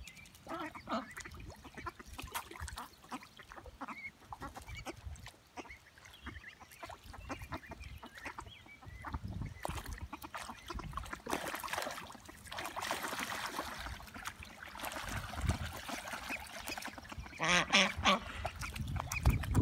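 Ducks quacking as they dabble and splash in a shallow rain puddle, with soft water splashing and pattering throughout. A loud bout of quacking comes near the end.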